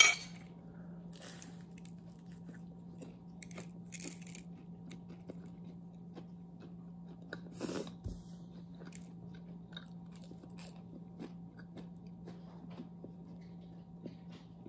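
Close-up biting and chewing of fried sesame balls, with scattered small crunches and one louder bite about halfway through. A steady low hum runs underneath, and there is a short knock right at the start.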